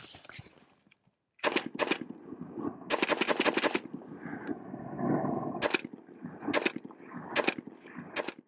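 Semi-auto DPM light machine gun firing 7.62x54R, one shot per trigger pull: a pair of shots, a quick string of shots about three seconds in, then single shots roughly a second apart, each followed by echo.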